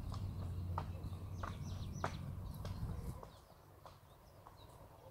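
Hoofbeats of a Friesian stallion on a sand arena: soft, evenly spaced thuds, about three every two seconds, with birds chirping. A low rumble underneath stops about three seconds in.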